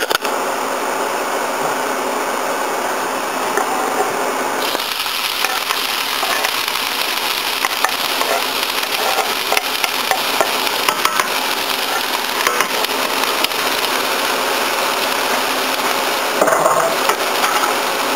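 Chopped onion and garlic sizzling in hot oil in a skillet: a steady crackling hiss that gets sharper about five seconds in, with a few light clicks and knocks.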